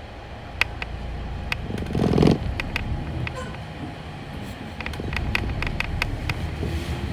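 City bus interior while driving: a steady low engine and road rumble, with irregular sharp clicks and rattles from the bus body and fittings, and a louder rattling burst about two seconds in.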